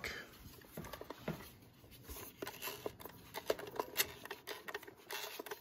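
Irregular small clicks and light metallic clinks from a vintage Westclox wind-up alarm clock being handled and checked to see whether it runs.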